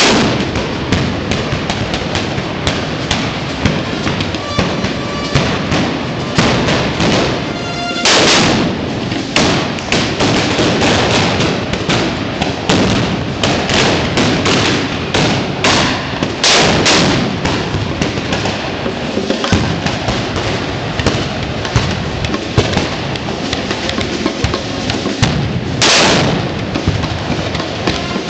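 Black-powder trabucos (blunderbusses) firing blank charges again and again. Shots overlap into an almost continuous crackle, with a few very loud close shots: one at the very start, one about eight seconds in, a couple around seventeen seconds and one near the end.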